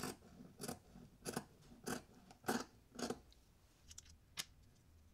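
Scissors cutting through polyester craft felt: six short snips, about one every half second, followed near the end by two fainter clicks.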